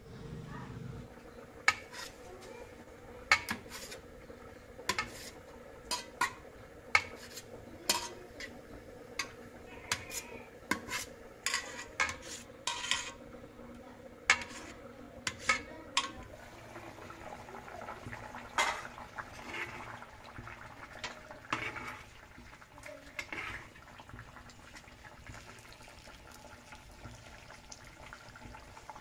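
Knife blade tapping and scraping on a stainless steel plate while chopping boiled egg whites: sharp, irregular clicks that thin out after about sixteen seconds.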